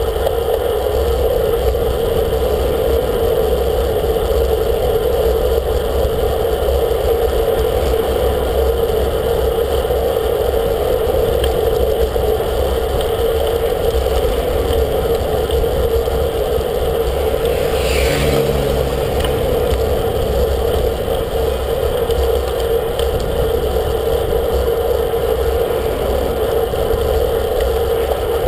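Steady wind rush and road-tyre noise on a bicycle-mounted camera riding at speed, with a constant drone underneath. A brief higher-pitched sound cuts through about two-thirds of the way through.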